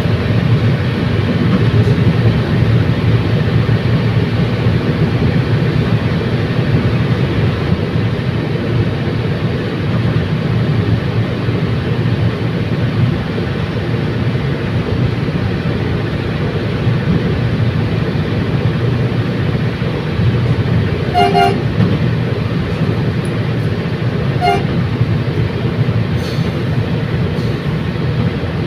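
Commuter train running along the line, a steady low rumble of wheels and engine. Two short horn toots about three seconds apart come near the end.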